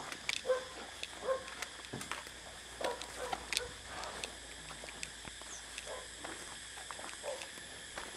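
Wagyu cattle in a feeding shed: short grunting sounds and scattered knocks and clicks.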